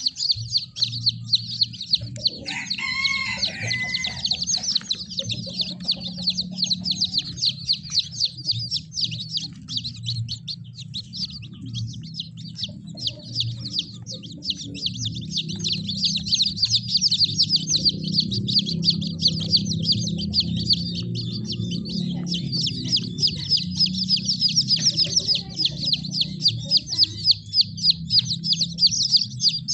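Many kampung chicken chicks peeping nonstop, a dense high-pitched chorus of short peeps. About two seconds in, a lower, drawn-out call with a clear pitch rises over it for about two seconds.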